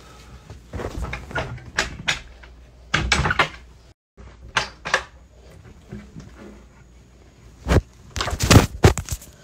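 Irregular knocks, clatters and rustling, with the sound cutting out completely for a moment about four seconds in; the loudest knocks come near the end.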